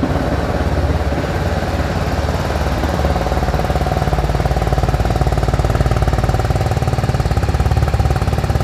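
BMW G310R's single-cylinder engine idling steadily through its exhaust just after a cold start, its auto choke still holding a fast idle while the engine warms. The exhaust note is throaty, an even rapid beat of firing pulses.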